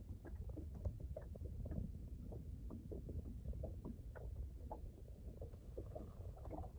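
Small waves lapping against the hull of a bass boat in irregular light slaps and splashes, over a low wind rumble on the microphone.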